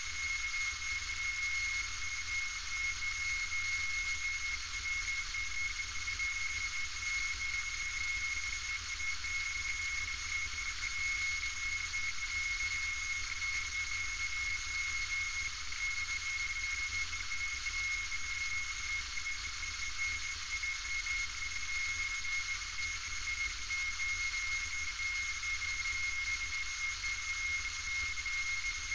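Steady engine and propeller noise inside a light aircraft's cabin in flight, with a constant high whine over the drone.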